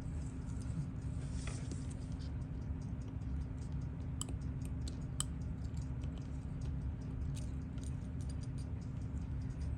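Small, irregular clicks and ticks of tweezers and hand tools on tiny metal parts as a Seiko 7548 watch movement is disassembled, with two sharper clicks around the middle, over a steady low hum.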